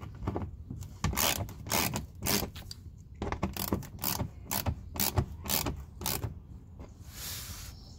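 Socket ratchet clicking in short bursts, about two to three a second, as a 10mm socket backs out a bolt on the car's engine undercover. A softer rasp follows near the end.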